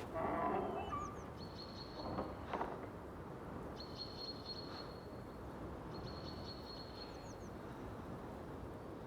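Insects, crickets by their sound, trilling in repeated spells of about a second each, with a few faint high chirps between them. A short louder sound comes at the very start and another about two and a half seconds in.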